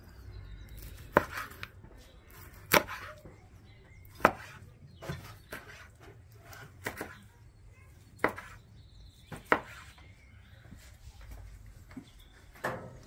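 Knife slicing grilled porterhouse steak thinly on a wooden cutting board, the blade knocking sharply against the board at the end of each cut, irregularly every one to two seconds.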